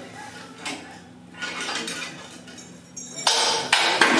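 Steel transfer track of a Gerstlauer Euro-Fighter roller coaster being pushed by hand, its metal frame clanking and rattling. The clatter grows loud and harsh about three seconds in.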